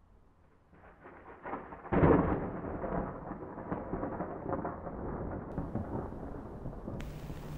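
Thunderstorm sound effect: a rumble builds, a loud thunderclap breaks about two seconds in, and thunder keeps rolling and crackling over rain.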